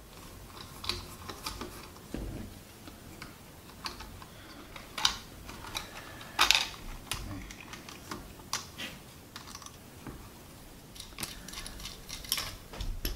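Irregular light clicks and taps of a transistor clock radio's plastic case and circuit board being handled and taken apart.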